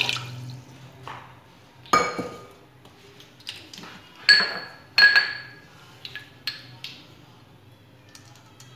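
The last trickle of water poured into an aluminium pressure cooker, then kitchenware clinking: a sharp ringing clink about two seconds in, two more ringing clinks around four and five seconds, and lighter taps between.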